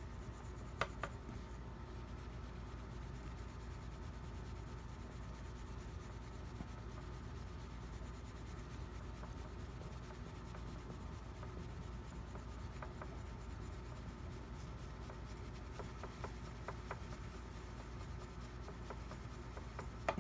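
Fine 0000 steel wool rubbed by hand over the repaired bite plate of a metal mouthpiece: a faint, steady scratchy rubbing, the smoothing stage after 600-grit paper. A sharp click about a second in and a few lighter ticks later on.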